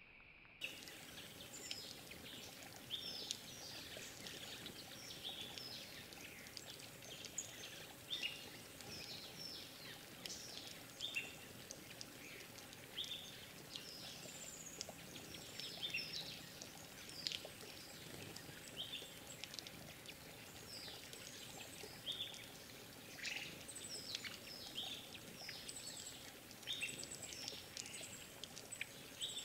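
Many short, high chirps from a group of small forest birds, often falling in pitch and coming close together, over a steady hiss of running water.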